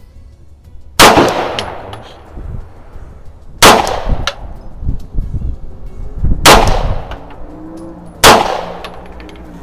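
Beretta 92FS 9mm pistol firing four single shots a few seconds apart, the last two closer together; each sharp crack trails off in a short echo.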